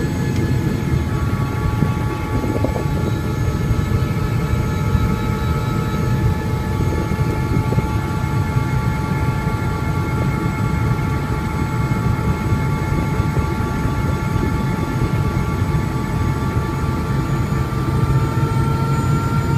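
Helicopter turbine engine and rotor running, heard inside the cabin: a steady heavy thrum under a high turbine whine of several tones. The whine rises slightly near the end as the helicopter powers up to take off.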